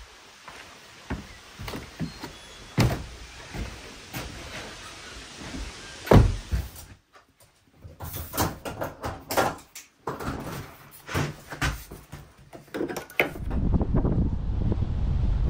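A string of knocks and clunks from a car door being opened and shut and gear being handled, the loudest about six seconds in. A steady low rumble sets in near the end.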